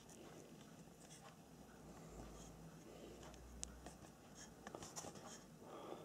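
Faint scratching and light dabbing of a small paintbrush on stretched canvas as pine trees are painted, with a few small ticks.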